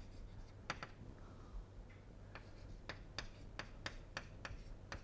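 Chalk writing on a blackboard: faint, short, irregular taps and clicks, about a dozen, as the chalk strikes and strokes the board.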